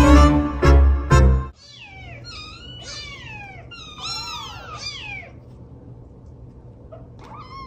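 Piano music stops abruptly about a second and a half in. Then small kittens mew over and over, a string of high-pitched calls that each fall in pitch, with a few seconds' lull before another mew near the end.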